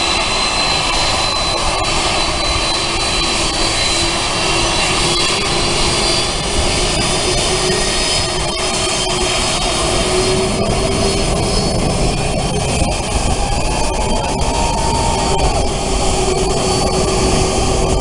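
Jet airliner engines running with a steady rumble and a high whine over it.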